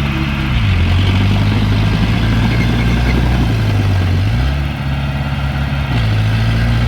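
Diesel engine of a piece of earthmoving machinery running, its pitch stepping down about half a second in, up again around four seconds, and down once more near the end as the engine speed changes.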